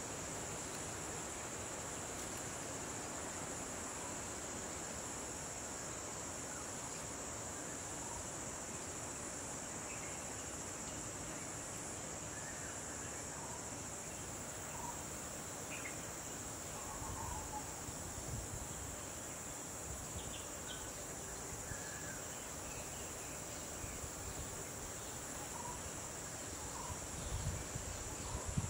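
A steady, high-pitched insect chorus drones on throughout, with faint scattered bird chirps. Low rumbling noises come in near the end and are the loudest part.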